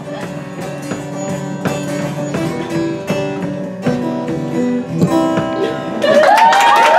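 Acoustic guitar playing the song's closing instrumental bars: plucked notes and strummed chords at a steady pace. About six seconds in, a crowd breaks into cheering, louder than the guitar.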